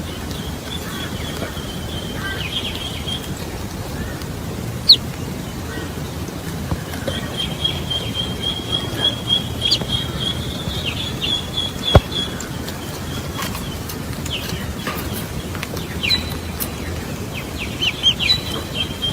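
Outdoor ambience with a high, steady trill that comes and goes three times, and a few sharp clicks, two of them loud, about five and twelve seconds in.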